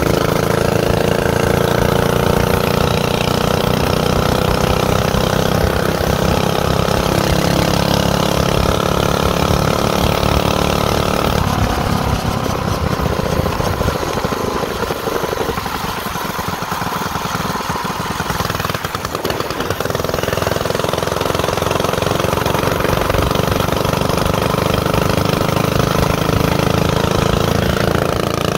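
Small dirt bike engine running while riding. Its pitch rises slowly over the first ten seconds or so, eases off for several seconds in the middle, then picks back up and holds steady.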